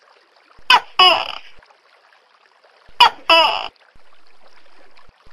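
Tokay gecko calling its two-part "to-kay" call twice, about two seconds apart. Each call is a short sharp first note followed by a longer second note that falls slightly in pitch. A faint steady hiss runs underneath.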